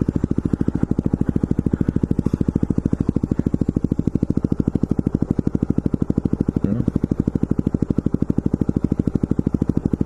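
A vehicle engine idling with a rapid, even throb of about nine or ten beats a second.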